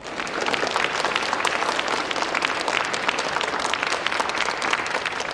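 Audience applauding: many hands clapping steadily, breaking out all at once.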